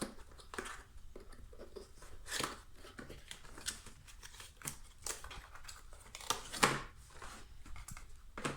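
A cardboard box being opened and its packaging handled: scattered rustles, scrapes and sharp clicks of cardboard and plastic, with a few louder knocks and rustles.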